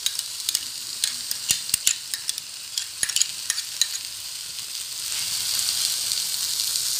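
Onion and tomato paste sizzling in an oiled frying pan, with a metal spoon clinking and scraping as ketchup is spooned out of a glass bowl into the pan during the first four seconds or so. After that the sizzle runs on steadily and grows slightly louder near the end.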